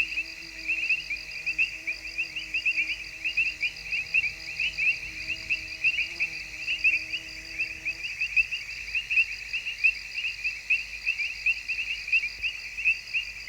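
Dense chorus of many crickets calling at once, a continuous rapid chirping. A faint steady hum sits underneath and stops about two-thirds of the way through.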